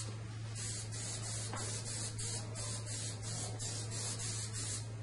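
Hands rubbing and smoothing pool table cloth down onto glued slate, a quick run of short hissing strokes, about three to four a second.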